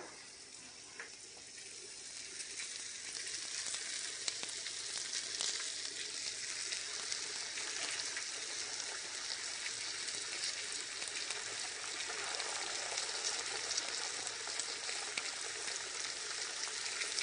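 Food frying in a hot pan: a steady sizzle full of fine crackles that builds up over the first few seconds, then holds even.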